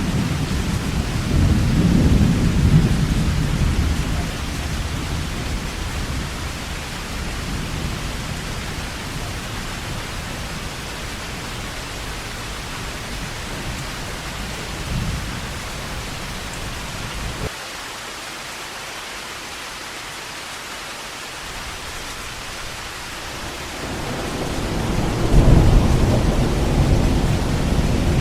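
Heavy rain falling in a steady hiss, with rolls of thunder: a deep rumble fades out over the first few seconds, and another builds up and peaks a few seconds before the end.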